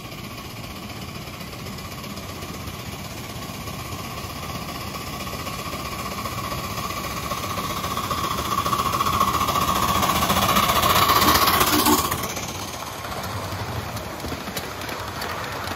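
Live-steam miniature locomotive running on the track, with a steady high tone that grows louder and then stops suddenly about twelve seconds in.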